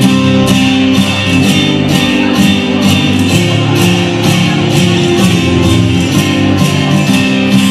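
Background music with a steady beat of about two strikes a second.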